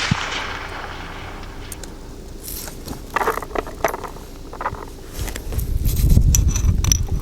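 The fading echo of a rifle shot in the first second, then light metallic clicks and scrapes of gear being handled. A low rumble follows from about five seconds in, and a short ringing metal clink comes near the end.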